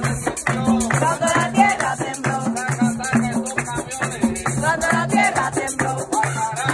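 Live street percussion music: hand drums keep a steady low beat under a crisp rattle, with voices singing along and hands clapping.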